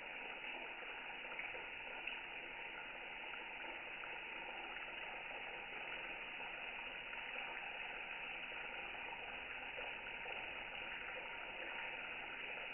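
Tap water running in a thin steady stream and splashing into a sink basin.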